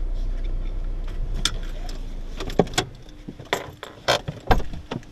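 Car engine and cabin rumble as the car settles into a parking space, fading out about two and a half seconds in. Then come six or so sharp metallic clicks and jingles inside the cabin.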